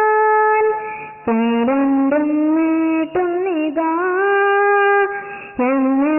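Devotional song music: a single melodic line of long held notes with slides, broken into three phrases by short gaps.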